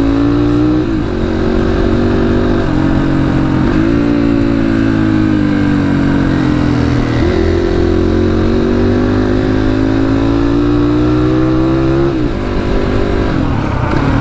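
Motorcycle engine running under way in traffic, its pitch climbing and falling with the throttle and dropping sharply several times at gear changes.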